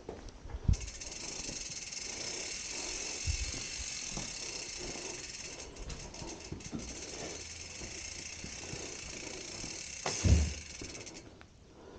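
Rear freehub of a gravel bike ticking in a fast, steady buzz as the bike is wheeled along without pedalling, stopping shortly before the end. A loud thump comes near the end.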